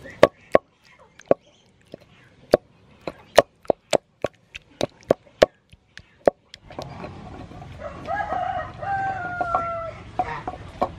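Wooden pestle pounding soft tomato in a wooden mortar: a run of about fifteen sharp knocks at an uneven pace. In the second half a rooster crows, one long call, with a few more knocks near the end.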